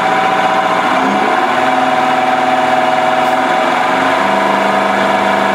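Diesel fuel-system test stand running an FPE PowerFlow 750 CP3 high-pressure injection pump as it is brought up to about 3,000 rpm. It makes a loud, steady mechanical hum whose tone changes about four seconds in.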